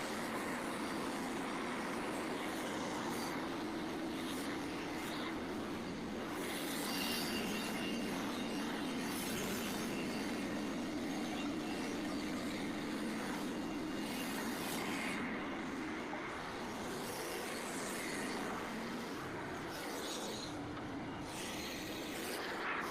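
Engine of a Frontier OS27 portable bandsaw sawmill running steadily while the band blade cuts through a red oak log.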